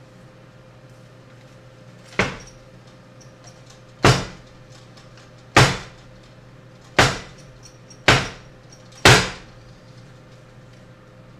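Six sharp wooden knocks on a hinged wooden grinder stand holding an OE Pharos hand coffee grinder, one to two seconds apart, each with a short ringing tail.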